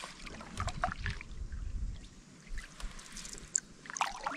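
Single-blade canoe paddle stroking through calm water, with a few small splashes and drips off the blade.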